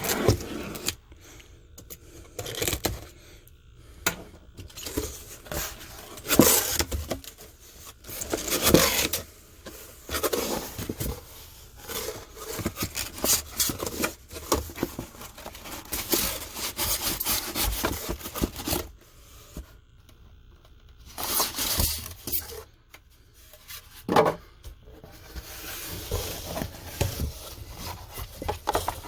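Cardboard box being opened by hand: cardboard and packing rubbing, scraping and tearing in irregular bursts, with short pauses.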